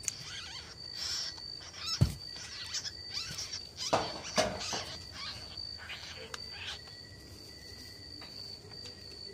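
A steady, high-pitched insect drone in the background, with a few sharp knocks and rustles from the wire rabbit cage and its plastic nest basket about two and four seconds in.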